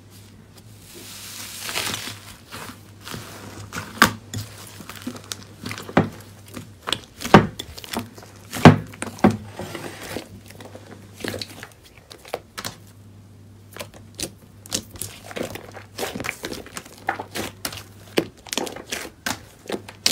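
Hands pressing, squishing and stretching slime. There is a grainy rustle about two seconds in, then a long run of irregular sharp pops and clicks as the slime is worked.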